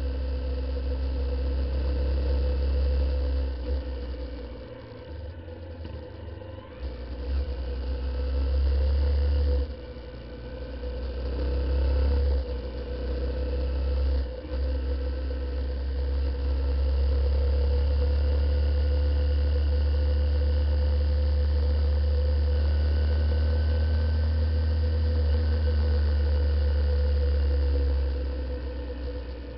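Honda CBF125 motorcycle on the move: its single-cylinder engine runs steadily under a low rumble of wind on the on-board camera's microphone. The rumble dips several times in the first half, then holds loud and steady before easing near the end.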